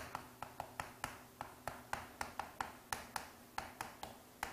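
Chalk writing on a blackboard: a rapid, irregular run of sharp taps and short scratches as the characters are written stroke by stroke.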